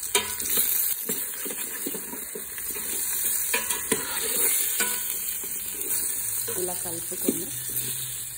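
Sliced radish and other vegetables sautéing in oil in a steel pot, a steady sizzle, while they are stirred. A spoon clicks against the pot a few times.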